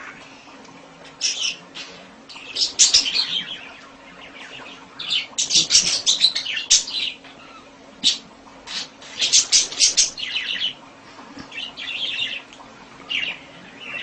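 Budgerigar chirping and chattering in repeated bursts of rapid, high-pitched calls.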